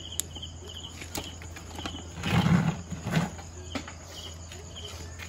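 Crickets chirping in repeated short high trills over a low steady hum. A brief muffled handling noise about halfway through, with a few faint clicks.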